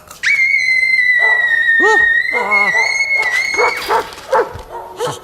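Dogs in a shelter: one dog gives a long, high, steady whine lasting about three and a half seconds, while others yip and bark in short rising-and-falling yelps beneath it.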